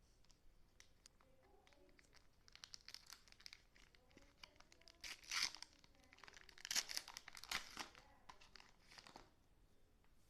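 Packaging being handled and opened: irregular crinkling and tearing of wrapping, starting with scattered clicks and growing to two louder bursts about five and seven seconds in.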